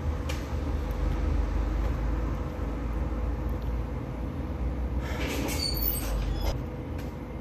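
A steady low mechanical rumble with a constant faint hum. Brief rustling and clicks come about five to six seconds in.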